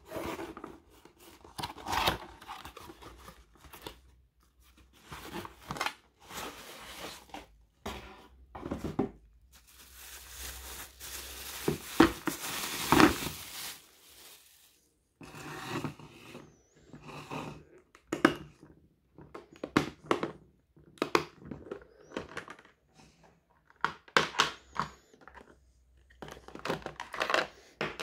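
Hands unpacking an electric lunch box in irregular bouts of handling noise. Cardboard packaging is opened and plastic wrapping crinkles in a longer stretch near the middle. Later come short clicks and knocks as the plastic box's lid clips are opened and the inner containers are handled.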